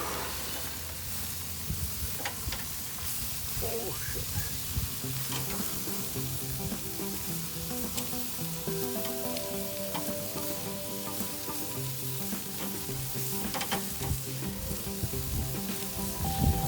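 Beef intestines sizzling on a grill: a steady hiss with a few sharp pops.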